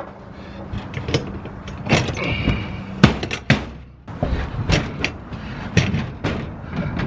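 A plastic Craftsman toolbox being shifted and knocked against an aluminum shelf rail, a run of clunks and knocks with a short squeak about two and a half seconds in, and its lid lifted open near the end.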